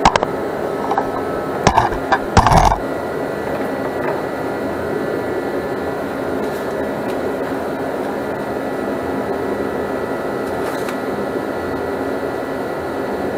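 A few knocks and a clatter in the first three seconds, then the steady hum of a portable forced-air shop heater running.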